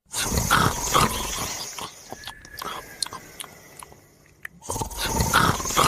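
Snoring during sleep: two long, loud, noisy snores about four and a half seconds apart, one just after the start and one near the end, with quieter breathing and small clicks between them.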